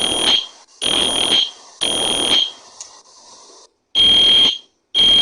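Fire alarm going off in loud repeated pulses, about one a second, each a high steady tone over a buzzy rasp, with a short break about three seconds in.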